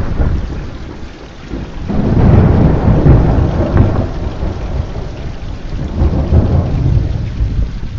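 Thunder rolling over steady rain: a deep rumble swells about two seconds in, rolls on, and swells again near the end.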